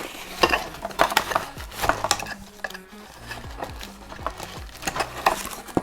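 Irregular small clicks, taps and rustles of kit items and packaging being handled and unpacked, with faint background music underneath.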